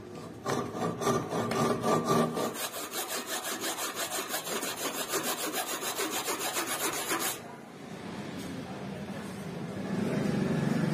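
Handsaw ripping a wooden block clamped in a bench vise into thin slabs, with quick, rhythmic back-and-forth strokes at about three a second. The sawing stops abruptly about seven seconds in.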